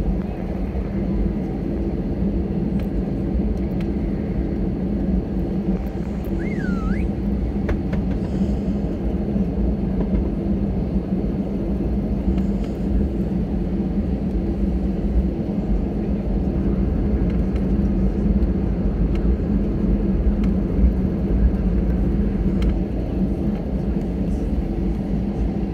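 Cabin noise of an Airbus A320-214 taxiing: its CFM56 engines at taxi power give a steady hum, over a low rumble from the rolling aircraft.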